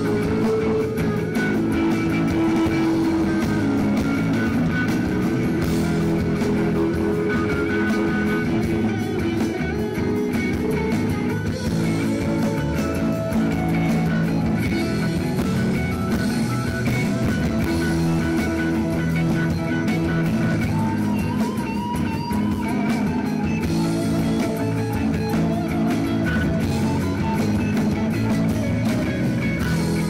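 Live rock band playing an instrumental passage, with electric guitar to the fore over a drum kit and other guitars.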